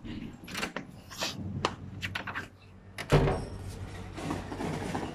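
A run of clicks and knocks, then a loud thump about three seconds in as a door is opened, followed by a steady low rumble from outside.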